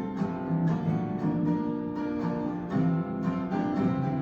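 Song intro on acoustic guitar: plucked and strummed chords with a steady rhythm.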